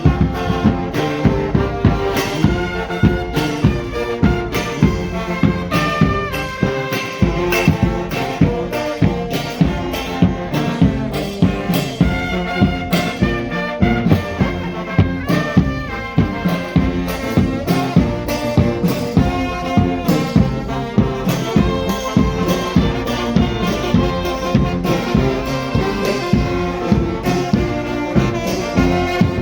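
Brass band playing a lively tune: trumpets and trombones carry the melody over a steady drum beat.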